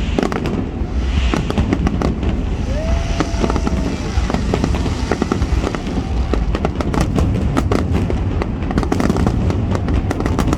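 Fireworks finale: a dense, unbroken barrage of bangs and crackles over a continuous low rumble.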